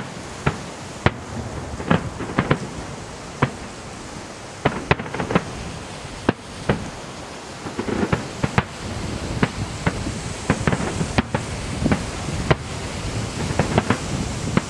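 Fireworks display: aerial shells bursting in an irregular series of sharp bangs, sometimes several within a second, some trailing a low rumble.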